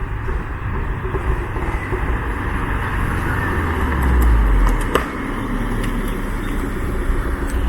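Toyota GT86's tuned flat-four engine and exhaust running with a deep rumble. It swells about four seconds in, and a single sharp crack about five seconds in is an exhaust pop from the pops-and-crackles tune.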